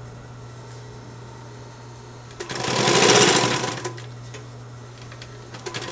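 Consew 225 industrial walking-foot sewing machine running a short burst of stitches about halfway through, speeding up and then slowing to a stop, over the steady hum of its motor. It starts stitching again near the end.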